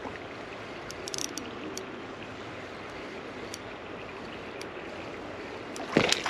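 Creek water running steadily. A few light clicks about a second in, and a sharp knock just before the end.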